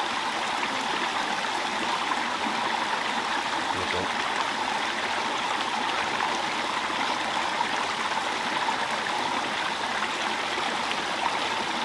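A small stream running steadily over rocks, a constant even rush of water.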